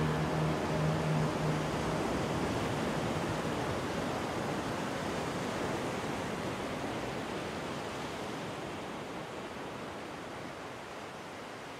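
The last low held note of the song dies away within the first two seconds, leaving an even rushing noise wash that slowly fades out as the track ends.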